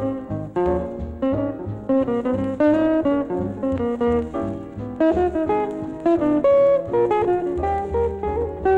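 Jazz band music with guitar and drums, a steady run of plucked notes over a regular beat.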